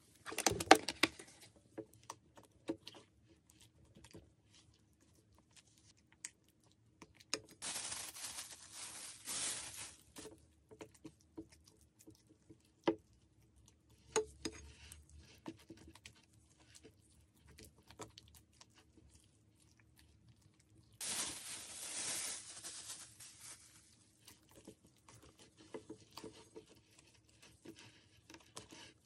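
Muffin batter being mixed by hand in a glass bowl: scattered taps, clicks and wet squishes of a spatula and gloved hands working the batter against the glass, with a burst of knocks at the start. There are two longer stretches of plastic rustling, about 8 and 21 seconds in.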